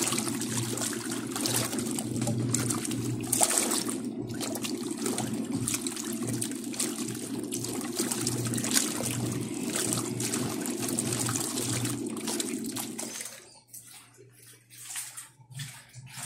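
Dako 4 kg tanquinho (small agitator washing machine) running: motor hum and water churning and sloshing as the agitator turns the clothes. It stops about 13 seconds in, leaving a few faint clicks and drips.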